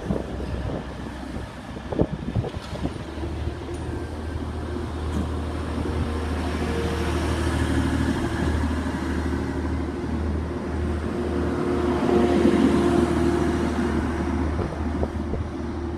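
Class 185 diesel multiple unit pulling away from the platform, its underfloor diesel engines running with a steady low drone that starts about three seconds in and grows louder, loudest around twelve seconds in.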